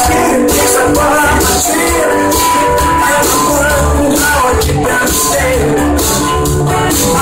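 Live yacht-rock band playing loud through a PA: electric, acoustic and bass guitars over a steady drum beat.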